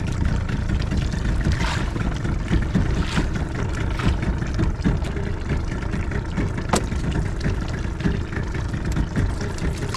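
Steady low rumble of a small boat at sea, its motor idling with water against the hull, and a few faint knocks.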